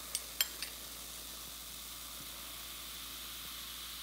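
Baking soda and vinegar fizzing: a steady soft hiss as carbon dioxide bubbles form and pop, the sign of a gas-producing chemical reaction. Three sharp clicks come in the first second.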